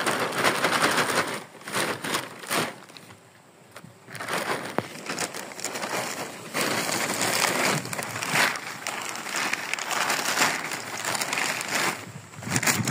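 Close rustling and crinkling of plastic sheeting and containers being handled, in uneven surges with a short lull about three seconds in.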